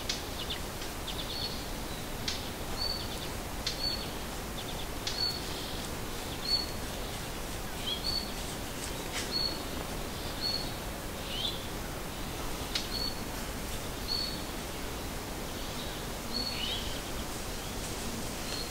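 A small songbird calling: short high chirps repeated about once a second, with now and then a lower down-slurred note, over a steady outdoor hiss.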